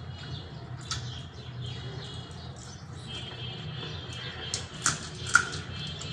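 Fingers mixing rice and fish curry on a steel plate, with wet squelching and a few sharp clicks, the loudest about five seconds in.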